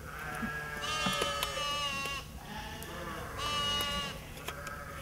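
Sheep bleating: two long, high-pitched bleats, the second shorter than the first.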